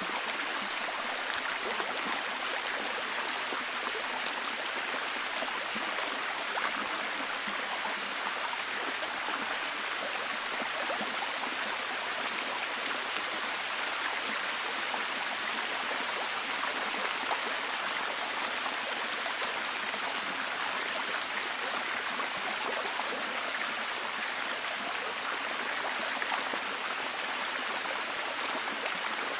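Rainforest ambience: a steady, even wash of water noise with many fine drip-like ticks running through it, unchanging throughout.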